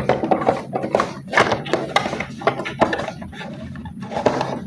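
A toy's box being opened and handled: a string of irregular taps, knocks and rustles.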